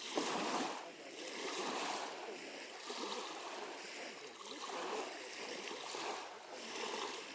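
Small waves lapping at the lake's edge, a soft wash of water coming in swells about once a second.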